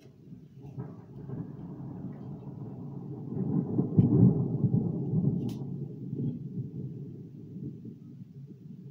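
Thunder rumbling, swelling from about a second in to its loudest near the middle with a few sharp cracks, then slowly fading away.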